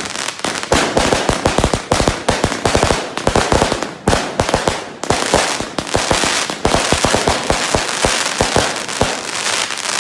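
Hercules 216-shot fireworks cake firing a rapid, dense volley of shots and crackling bangs, cutting off suddenly at the end as the cake finishes.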